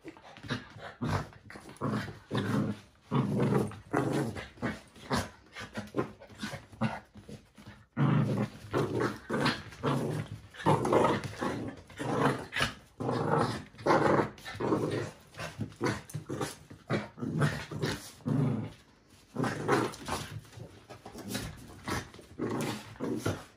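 Small dogs play-fighting, growling in a rapid run of short bursts, loudest through the middle stretch.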